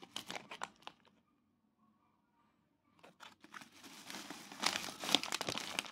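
Thin plastic carrier bag and snack packets crinkling as a hand rummages through them: a short run of crackles at the start, a quiet gap of about two seconds, then denser, louder crinkling from about three seconds in.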